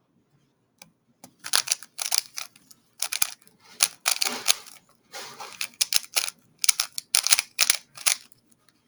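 A 3x3 speedcube being turned fast by hand during a solve: quick runs of plastic clicks and rattling as the layers snap round, starting about a second in.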